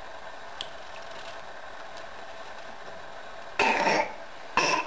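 Two short, loud, breathy vocal bursts close to the microphone, about three and a half and four and a half seconds in, after a quiet stretch.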